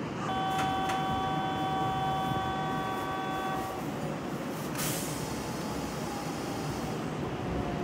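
A train horn sounds a steady chord for about three and a half seconds, starting just after the start, over the rumble of trains at the platform. After it a Kintetsu 1031-series electric train runs in to stop, with a faint whine slowly falling in pitch as it brakes.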